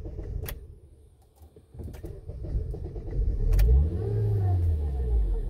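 2008 Honda Accord engine starting: it catches about two seconds in, flares up in revs and settles back toward a steady idle. A sharp click is heard twice.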